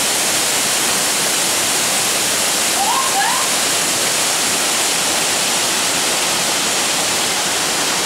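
Waterfall rushing loudly and steadily, falling water splashing into its plunge pool.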